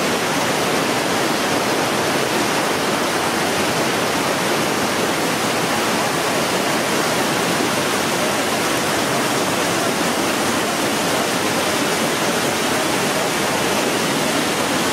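Steady rush of water from waterfalls and cascades.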